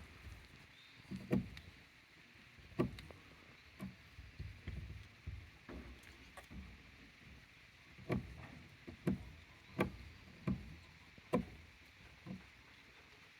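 A series of irregular knocks and thumps, roughly one a second, some louder than others, over a faint steady hiss.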